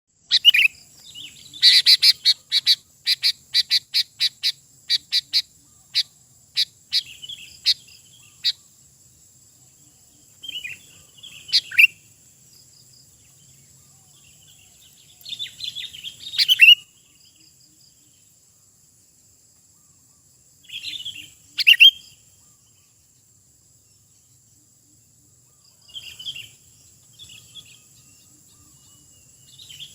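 Sooty-headed bulbul calling: a quick run of sharp, high notes, about two a second, for the first eight seconds, then short chattering phrases every four to five seconds.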